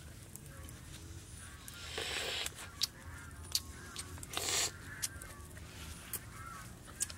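Someone slurping hot roasted egg off a leaf used as a spoon: two noisy slurps about two seconds apart, the second the louder. Repeated short high chirps and scattered faint clicks run behind.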